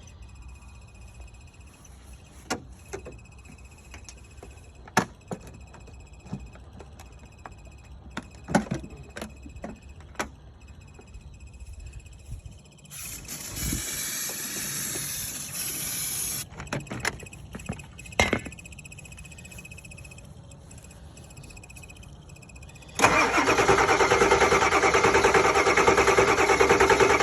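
Ford F-350 starter cranking the engine for about four seconds near the end without it catching, in a no-start. About ten seconds earlier, a hiss lasting some three seconds, consistent with starting fluid sprayed from an aerosol can into the intake. Light clicks and knocks are scattered through the first half.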